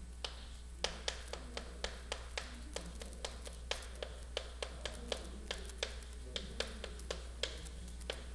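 Chalk tapping on a chalkboard as characters are written: a quick, uneven run of sharp little taps, about three or four a second.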